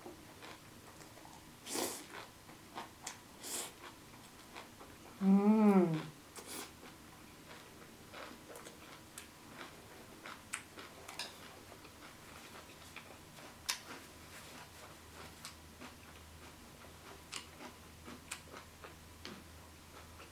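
Close-up mouth sounds of someone chewing a mouthful of noodles: soft, scattered wet clicks and smacks. About five seconds in comes one short, louder voiced sound that rises and falls in pitch.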